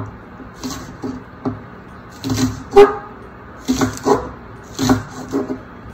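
Chef knife chopping green onions on a wooden cutting board: short, irregular knocks of the blade on the board. The loudest knock, a little before halfway, has a brief tone in it.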